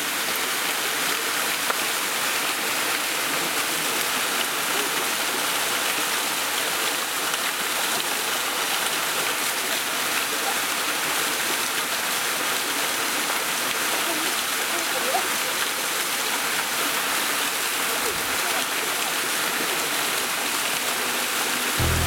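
Steady rush of a mountain stream pouring over waterfalls: an even hiss of water, strongest in the upper range, with little low rumble.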